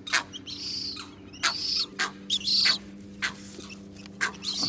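Limpkin chick calling: a run of short, high peeps, each rising and falling, repeated every half second or so, with sharp clicks between them. A faint steady low hum runs underneath.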